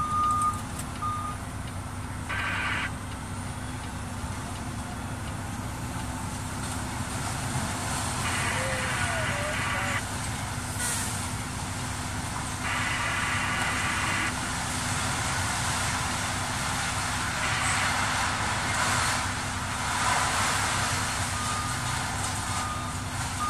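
Heavy diesel machinery running at a scrap yard: a truck engine idling steadily under the loader's and excavator's working noise, with several louder rushes. A backup alarm beeps at the start and again near the end, and a few short spells of a higher buzzing sound come in between.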